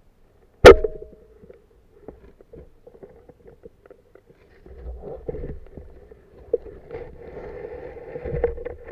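A single sharp, loud snap less than a second in, typical of a home-made speargun being fired underwater, with a brief ringing after it. Then faint scattered knocks and water movement with a low steady hum, growing louder in the second half.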